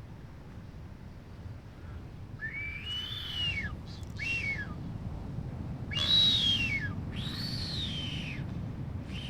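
Blue-footed booby whistling during courtship: four drawn-out whistles, each rising, holding, then falling away, the third the loudest. Male boobies give this whistle while the females honk.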